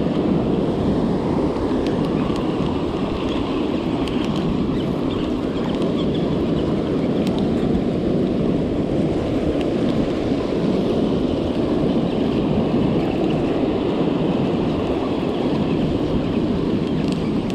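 Sea surf washing in over a pebble beach, with wind buffeting the microphone: a steady, loud rushing noise.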